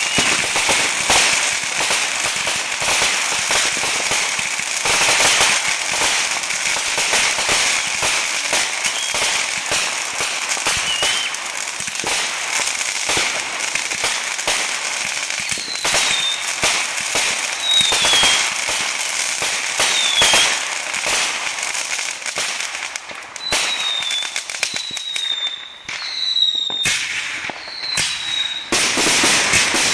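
Ground fountain fireworks spraying sparks: a continuous hissing crackle full of sharp pops and snaps. From about halfway, short high falling whistles repeat every second or two, and near the end louder separate pops come as a multi-shot firework fires its flaming shots.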